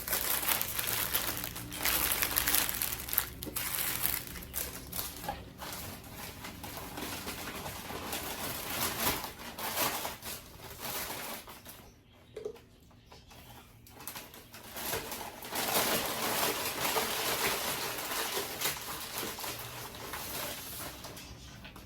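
Close-up mukbang eating sounds: irregular chewing and the crinkling of food wrapping, with a quieter stretch about twelve seconds in.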